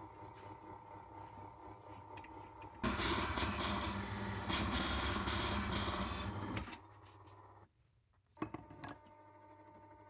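Wood lathe running with a wild olive bowl spinning on it. About three seconds in, a hand-held tool is pressed into the inside of the spinning bowl, giving a loud rough scraping noise for about four seconds. Once the tool comes off, there are a couple of sharp knocks and the steady lathe hum carries on.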